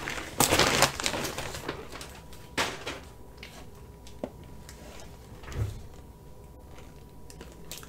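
Handling of shrink-wrapped packaging: a loud crinkling rustle about half a second in and a shorter one near three seconds, then a sharp click and a dull thump as the package is set down on the wooden table, with a few faint clicks after.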